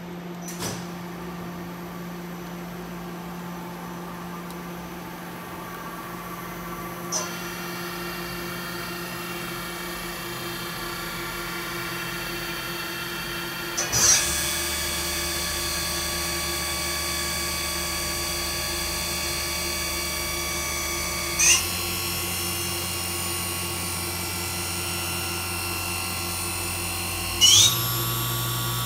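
Mori Seiki NV-5000's 12,000 RPM CAT-40 spindle running with a high, steady whine made of several pitches. It steps up in speed five times, roughly every seven seconds. Each step is a short rising sweep before the whine settles at a new, higher pitch.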